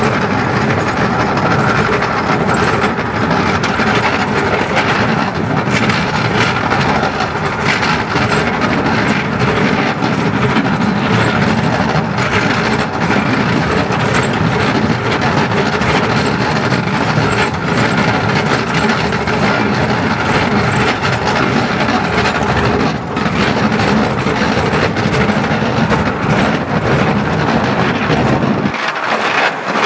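Narrow-gauge steam train on the move, heard from the carriage behind the locomotive: a steady rumble and rattle of wheels on the rails with scattered clacks. The deepest part of the rumble drops away near the end.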